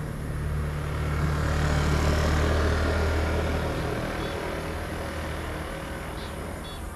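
A motor scooter passing on the road: its engine grows louder, is loudest about two to three seconds in, then fades, over a low steady hum. A few short high chirps near the end.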